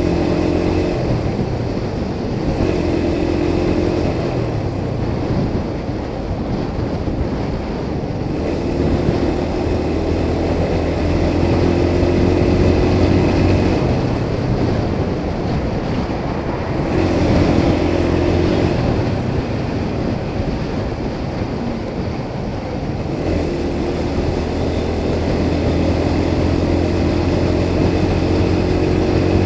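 Motorcycle engine running at cruising speed on a highway, with wind rushing past the microphone. The engine note holds steady for stretches of several seconds and fades back into the wind noise between them.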